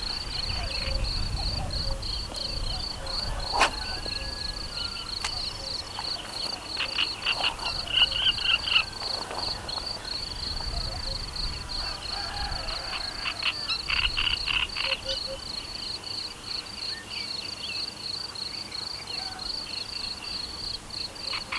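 Insects chirping with a steady, high pulsing note repeating several times a second, and twice a frog's rapid rattling croak.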